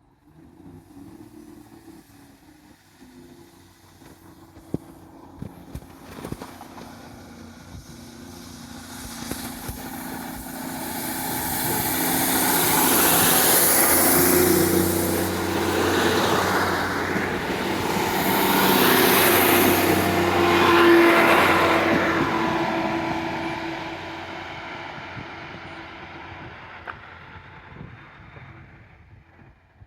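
A large diesel vehicle passing close by: its engine hum builds over several seconds, is loudest in the middle with a rush of hiss, then fades away.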